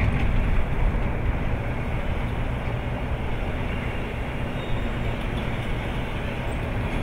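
Steady low rumble of idling vehicle engines, with no siren.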